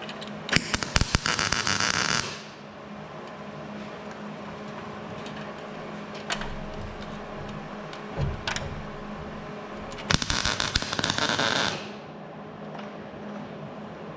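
Welder tack-welding a sheet-metal patch panel on a pickup bed: two bursts of rapid popping, each about a second and a half long and some eight seconds apart, with a steady low hum underneath.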